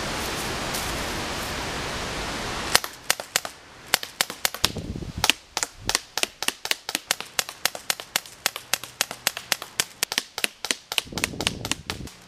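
A Heckler & Koch USP CO2 airsoft pistol fired again and again: after a few seconds of steady rushing outdoor noise, a quick, irregular run of sharp pops, several a second, that goes on for most of the rest of the time.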